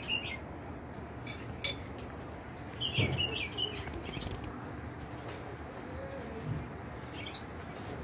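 Short, high bird chirps come scattered over a steady background hiss, with the loudest cluster about three seconds in and a dull low thud under it.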